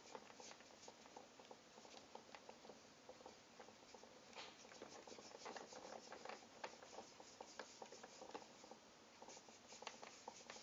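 Faint, irregular small taps and scrapes of hands working Play-Doh on a tabletop.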